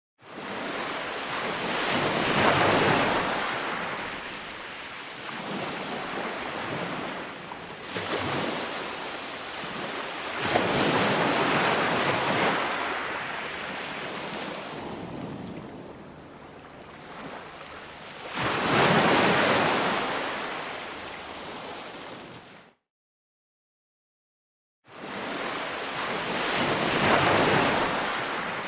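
Ocean waves breaking on the shore: rushing surf that swells and washes away about five times. Late on it cuts out abruptly to about two seconds of dead silence, then resumes.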